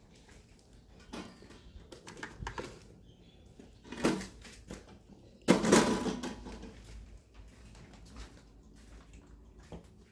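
Handling noises: scattered knocks and clatters of objects being moved about, with a louder, longer clatter about five and a half seconds in.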